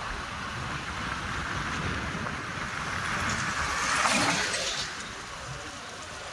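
A road vehicle going past: a rushing noise swells to a peak about four seconds in and falls away, over a steady low rumble.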